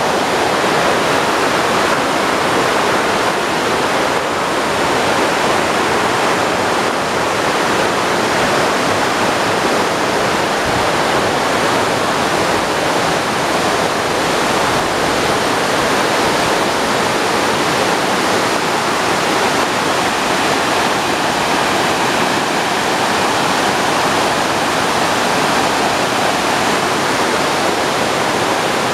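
Fast, swollen river rushing over rocks below in white-water rapids: a loud, steady rush of water that does not let up.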